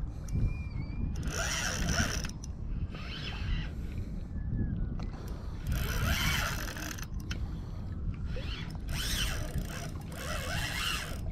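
Spinning reel being cranked in short spells of about a second each, its gears whirring, as a hooked fish is played. A steady low rumble runs underneath.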